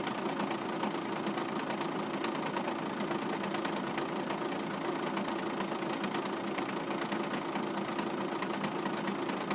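Škoda Octavia 2.0 TDI PD (BKD) four-cylinder diesel idling warm with the clutch pedal released, a steady idle with fine ticking running through it. This is the strange sound that the owner links to the clutch or dual-mass flywheel.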